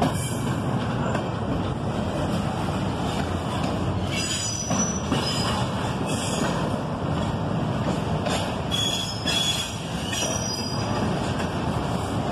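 Double-stack intermodal well cars rolling past with a steady rumble and clatter of steel wheels on rail, broken several times by brief high-pitched wheel squeals.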